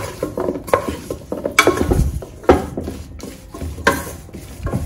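Wooden spatula stirring and tossing sliced bell peppers and green beans in a frying pan, with about six irregular knocks and scrapes of the spatula against the pan.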